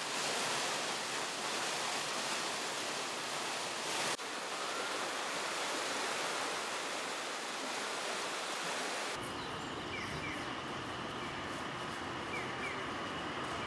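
Hot spring water rushing through the wooden channels and down the falls of the Yubatake at Kusatsu Onsen: a steady, dense rush of water. Its character changes abruptly twice, about four and nine seconds in.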